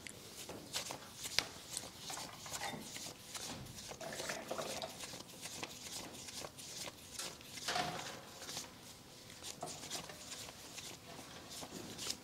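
A wad of Vietnamese đồng polymer banknotes being counted by hand: a quick, irregular run of flicks and rustles as each note is thumbed over to check the sum.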